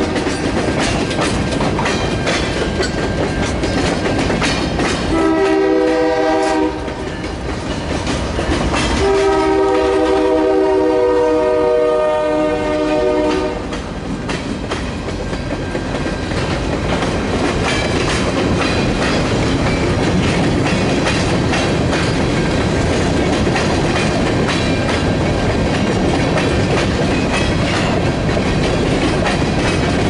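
Freight cars, tank cars and covered hoppers, rolling past with a steady wheel clatter over the rail joints. A multi-note locomotive horn sounds over it three times: a blast ending just after the start, a short one about five seconds in, and a longer one from about nine to thirteen and a half seconds in.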